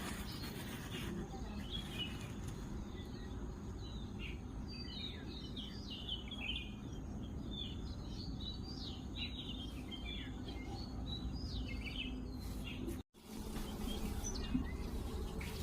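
Small birds chirping and twittering, many quick high calls in a dense run through the middle, over a steady low background noise. The sound drops out briefly about 13 seconds in, then the chirping goes on.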